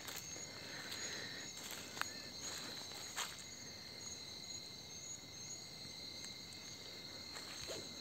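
Steady night chorus of insects, a constant high-pitched trilling on a few fixed pitches, with a few soft footsteps or clicks about two and three seconds in.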